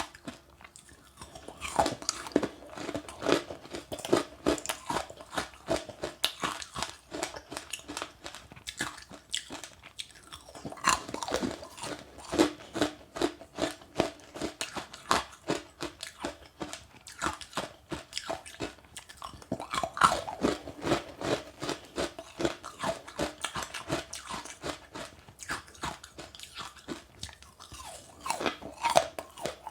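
Close-up chewing of passionfruit pulp with sesame seeds: a dense run of rapid, crackly crunches as the seeds break between the teeth, with short lulls about ten seconds in and near the end.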